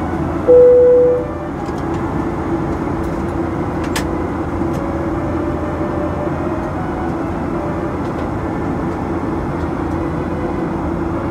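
Steady cabin noise of a Boeing 737-800 in flight: engine and airflow rumble heard from inside the cabin. About half a second in, a single loud tone sounds briefly.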